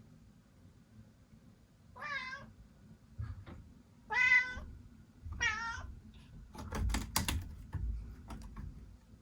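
A young cat meowing three times, short rising-and-falling calls a second or two apart, followed by a quick run of sharp clicks and knocks.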